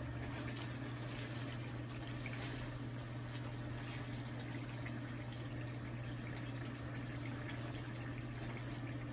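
Thick chicken gravy bubbling in a pan as it is stirred with a wooden spatula, over a steady low hum.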